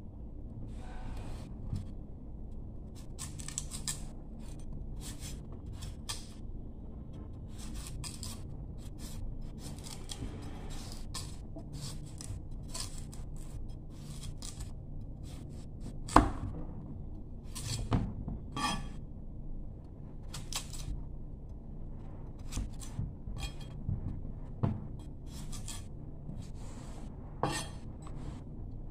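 A large kitchen knife paring thick peel off a fruit: many short cutting and scraping strokes, with a few louder knocks on the wooden chopping board, the loudest about 16 seconds in.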